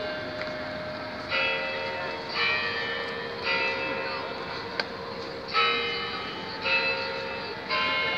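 The Kremlin chimes of the Spasskaya Tower: bells struck one at a time, about a second apart, in changing pitches as a slow tune. Each stroke rings on and fades, with a short pause partway through.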